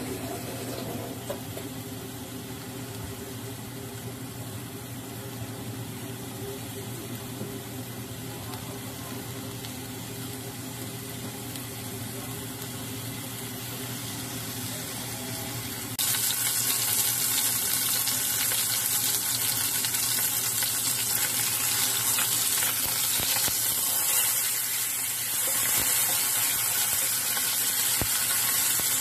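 Chicken thigh frying in a nonstick frying pan: a faint sizzle over a steady hum, then about halfway through the sizzle becomes much louder and stays loud as the meat browns.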